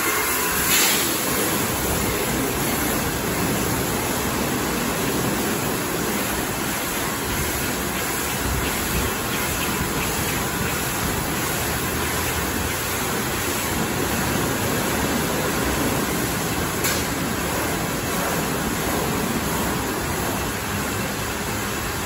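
High-pressure water jets from a Liquid Force touchless car wash gantry spraying down a car: a loud, steady rush of spray that holds at one level.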